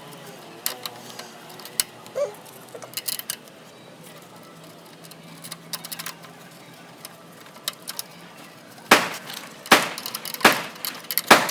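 Scattered metallic clicks and clinks of hand tools and bike parts during rear-wheel reassembly, with several louder sharp knocks near the end.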